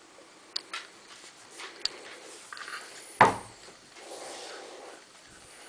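A few light clicks and knocks, then one loud thump about three seconds in, followed by about a second of rustling.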